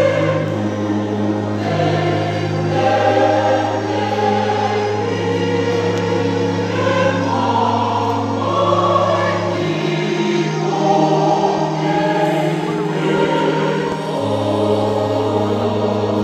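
Mixed-voice church choir singing a hymn in parts, women's and men's voices together. A low held bass note drops out about ten seconds in and returns about four seconds later.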